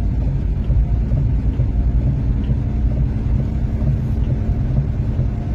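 Steady low rumble of a vehicle driving slowly on a slushy, snow-covered highway, heard from inside the vehicle: engine and tyre noise.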